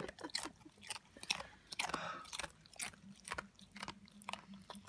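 German shorthaired pointer chewing in its sleep, jaws working as if eating: irregular smacking and clicking of lips and teeth, several a second.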